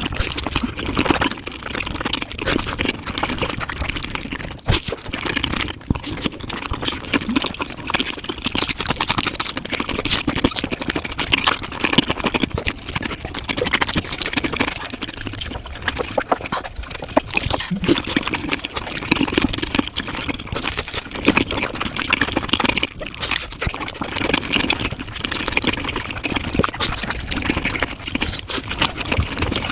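Eating sounds sped up to five times normal speed: a dense, unbroken run of quick wet chewing and mouth clicks.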